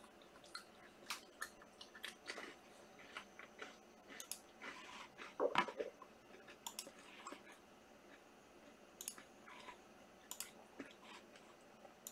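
Trading cards and card-pack wrappers being handled: scattered light clicks and rustles, with a louder crinkle about five and a half seconds in.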